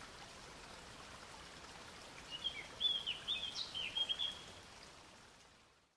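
Faint steady rush of a stream, with a bird twittering a run of short chirps for about two seconds in the middle; it all fades out to silence near the end.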